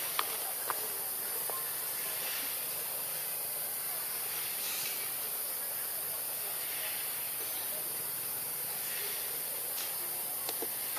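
Steady high-pitched hiss of outdoor background noise, with a few light clicks about a second in and again near the end.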